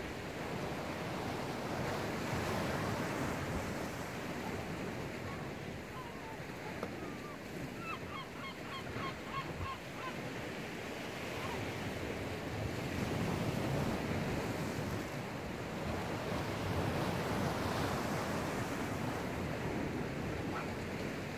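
Rough sea surf washing in and drawing back, a steady rushing noise that swells and eases, with wind on the microphone. Around the middle there is a short run of about ten quick high chirps.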